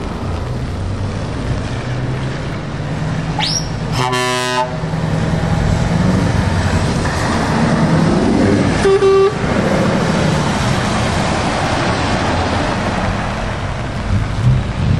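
Heavy trucks driving past on a wet road, their diesel engines running over tyre spray. A truck horn blasts for under a second about four seconds in, and a second, shorter horn toot comes about nine seconds in.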